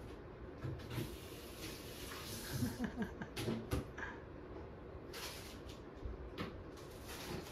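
Faint rustles and a few soft knocks of hands moving over a cat's fur and a rug, with brief low murmurs around the middle.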